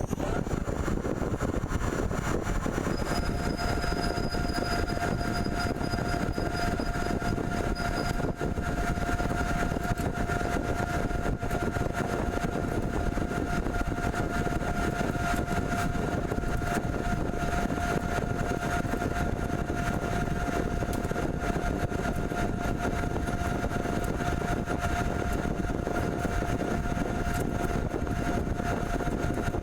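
RMT Pipe Spool Master CNC pipe threading machine running: a steady mechanical drone, with a steady whine coming in about three seconds in and holding.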